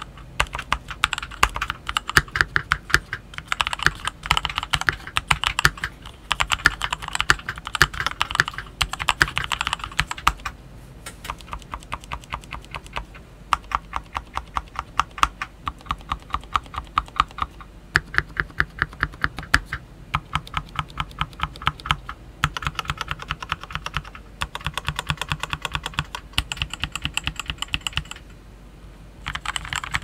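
Typing on a shroud-modded CIY X77 mechanical keyboard with linear Gateron Milky Black switches and Idobao Black Sakura DSA keycaps: fast runs of keystroke clacks broken by short pauses, with a slower, softer stretch in the middle.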